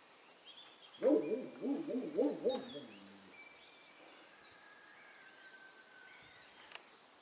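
A run of about six low, warbling hoots over roughly two seconds, over faint high bird chirps.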